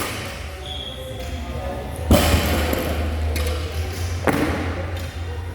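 Two heavy thuds on a gym floor, about two seconds apart, over a steady low hum.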